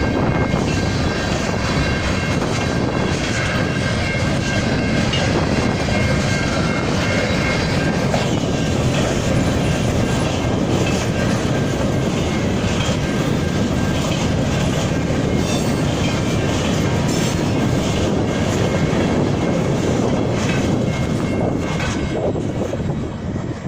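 CN #559 freight train's cars rolling past, wheels clicking over the rail joints in a steady rumble, with a thin high wheel squeal over the first several seconds.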